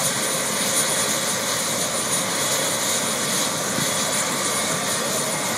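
Bell helicopter running on the ground with its turbine engine and rotors turning: a steady rush of rotor and engine noise with a thin, high, steady turbine whine over it.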